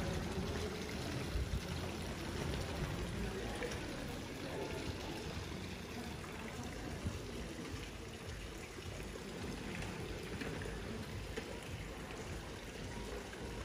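Stone street fountain running, its water trickling and splashing into the basin as a steady wash of sound.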